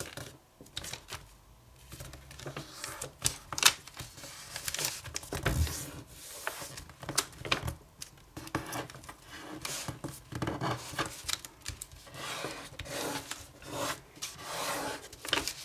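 A square of kami origami paper being folded and creased by hand: an irregular run of rustles, crisp ticks and rubbing strokes as fingers press and slide along the folds.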